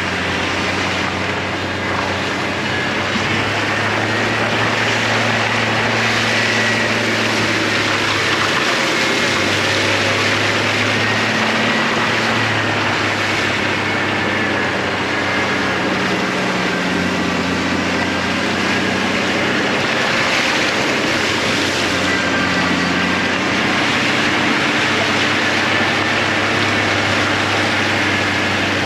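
Truck engine running under load while driving through deep, wet snow, its pitch shifting every few seconds with the throttle, over a steady rush of tire and snow noise.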